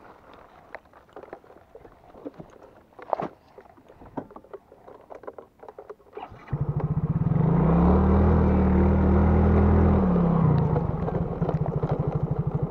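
Plastic bag crinkling with small handling clicks, then about halfway through a small scooter engine starts. It rises in pitch as the scooter pulls away, holds, eases off a little after a few seconds, and keeps running with a steady even putter.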